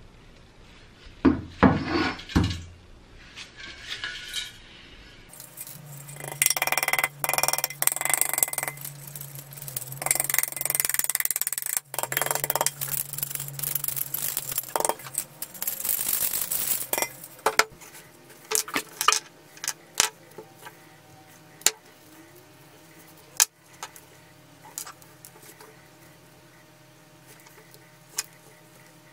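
A rusty copper hand sprayer (1955 Muratori) knocked against a wooden bench, then shaken and tapped so that rust flakes rattle and scrape out of it onto the wood. After that come separate metallic clicks and taps as small brass fittings are handled.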